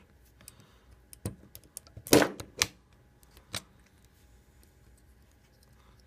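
Punch-down tool seating wires into the slots of a Cat5e RJ45 keystone jack: a handful of sharp clicks between about one and three and a half seconds in, the loudest a little after two seconds. Each snap marks a wire pressed home and its loose end cut off by the tool's blade.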